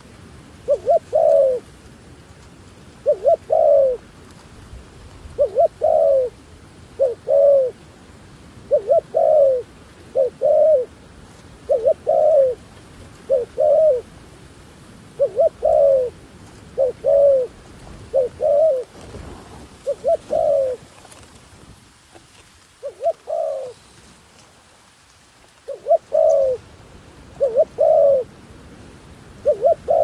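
Spotted dove cooing: short phrases of two or three low notes, repeated over and over about every second or so, with a brief pause shortly before the end.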